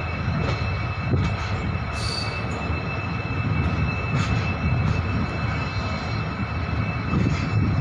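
EMD two-stroke diesel locomotive humming steadily as the train arrives, with a steady high whine over the low engine rumble. There are a few short clicks, and a brief high hiss about two seconds in.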